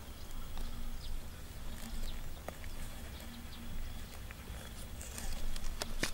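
Fingers digging at dry, crumbly clay soil around a burrow entrance: scattered small clicks and crumbles over a low rumble, with the clicks thickening near the end and one sharp knock just before it ends.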